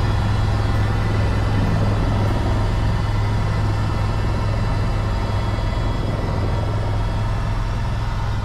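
Helicopter in flight, heard from inside the cabin: a steady low rotor hum with a constant engine and gearbox whine above it.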